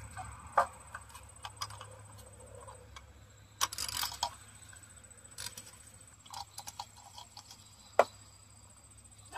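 Scattered light clicks and taps of a hand tool and engine parts being handled during a spark plug change, with a cluster of clicks about four seconds in and the loudest single click near the end.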